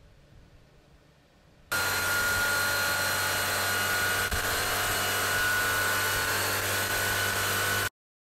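Bentley engine running steadily on a test bench: a loud, even rush with a steady whine over a low hum. It cuts in suddenly about two seconds in and cuts off sharply near the end.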